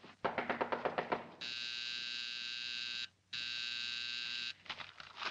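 Rapid knocking on a door for about a second, then an electric door buzzer sounding in two long rings with a short break between them, and a few more knocks near the end.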